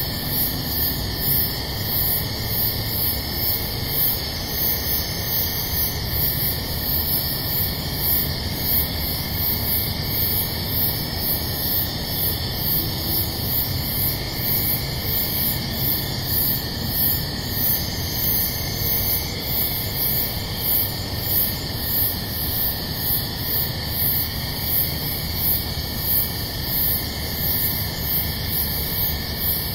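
Night insects chirping in an even, repeating high-pitched rhythm over a steady hiss of microphone noise.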